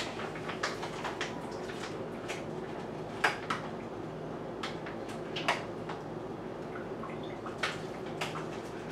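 Excess water being drained out of a rehydrated freeze-dried meal pouch through a small opening, heard as scattered drips and sharp taps, over a steady low hum.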